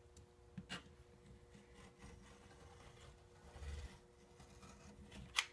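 Rotary cutter with a pinking blade rolling and scraping through cotton photo fabric along a ruler on a cutting mat, faint, with one sharp click near the end.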